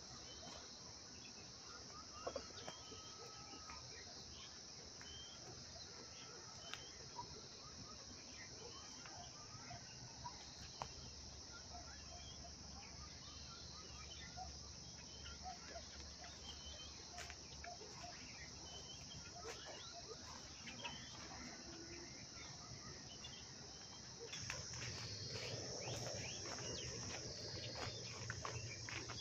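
A steady high insect drone in the surrounding scrub, with faint scattered crackles of footsteps in dry leaf litter. About 24 seconds in, the drone shifts and grows a little louder, with more crackling.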